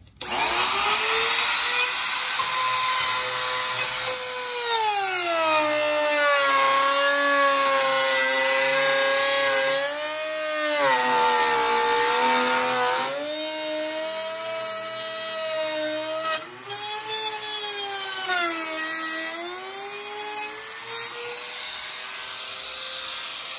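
Compact trim router cutting a groove in wood at a reduced depth so as not to strain the motor. Its high whine comes on suddenly at the start and sags in pitch several times as the bit takes load, then climbs back.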